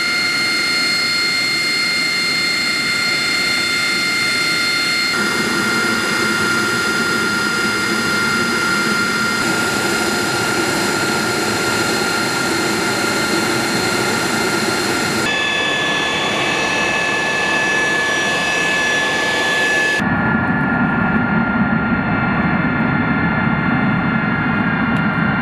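AV-8B Harrier II's Pegasus turbofan running on the ground: a steady high whine of several tones over a rushing noise. The sound shifts abruptly several times, and in the last few seconds the highest whine drops away while a deeper rumble grows.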